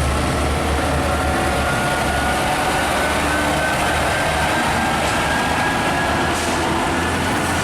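Tanker truck driving: a steady engine and road noise with a strong low hum and a faint whine that rises slowly.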